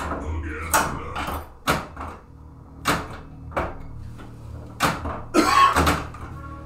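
A Stern Lightning pinball machine in play: a string of sharp mechanical knocks, roughly one a second, from flippers, solenoids and the ball striking targets. A longer, louder clatter comes about five and a half seconds in.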